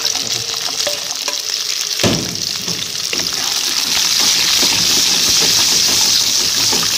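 Hot oil in a wok sizzling and crackling as whole garlic cloves and shallots fry, stirred with a wooden spatula. There is a single knock about two seconds in, and the sizzle grows louder from about halfway through.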